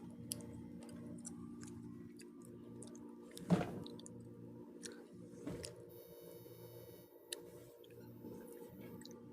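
A person chewing pizza close to the microphone, with small wet mouth clicks over a faint steady hum. One louder mouth sound comes about three and a half seconds in.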